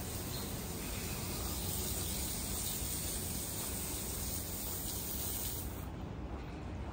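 Steady rush of running water from a stream or small waterfall. Its high hiss drops away abruptly about six seconds in.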